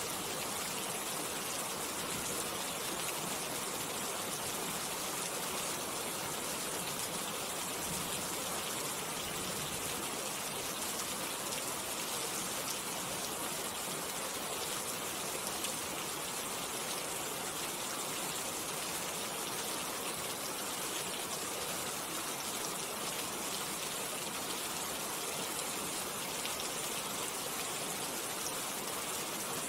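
Steady rain falling, an even, unbroken hiss of drops with no pauses or changes.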